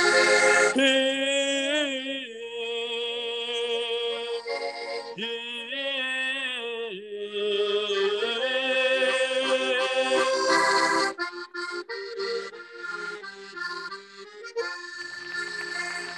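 Piano accordion playing the closing passage of a Kyrgyz folk-style song: long held chords and melody notes, giving way to shorter, detached notes about two-thirds of the way through.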